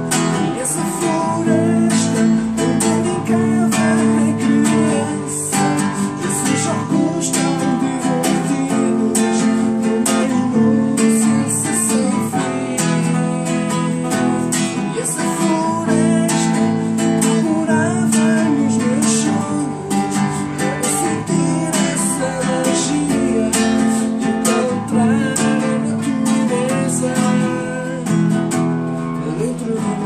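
Nylon-string classical guitar strummed in a steady rhythm, with a man singing over it at times.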